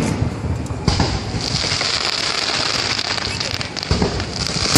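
Aerial fireworks bursting: four sharp booms, one at the start, one about a second in and two near the end, over a steady high hiss that sets in after the second boom.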